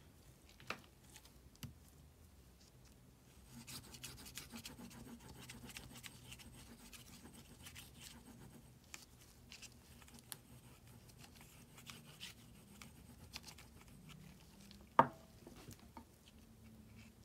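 Lino-block printing by hand: the back of a watercolour postcard laid over an inked lino block is rubbed to burnish the print, making a soft scratchy rubbing with many small ticks from about three and a half seconds in. A single sharp click comes about fifteen seconds in.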